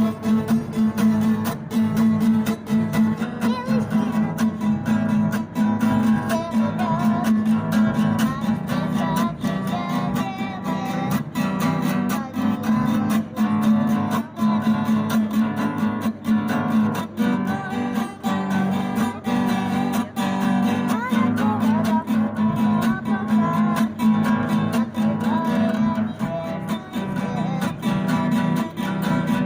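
Acoustic guitar strummed in a steady, even rhythm, playing a song without vocals.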